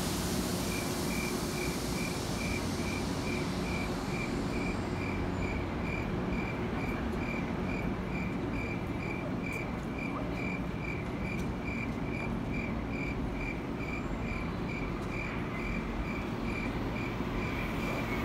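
A high electronic beep repeating steadily at about four short beeps a second, over the low hum of an electric commuter train standing at the platform.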